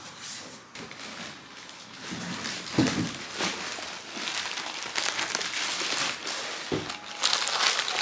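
Clear plastic bag around a Marshall guitar combo amp crinkling and rustling as the heavy amp is lifted out of its box and handled. There is a dull thump about three seconds in and another near the end.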